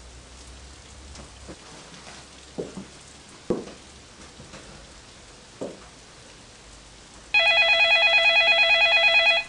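An electronic telephone ringer trills loudly for about two seconds near the end, a rapidly warbling tone. Before it come a few soft knocks of dishes being washed, over a steady hiss.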